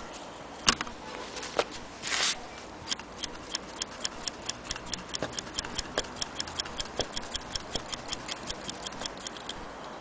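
Antique Willcox & Gibbs chain-stitch sewing machine running and stitching through a piece of dark material, making a steady mechanical ticking of about six clicks a second. A short rustle of the material comes about two seconds in, before the stitching starts.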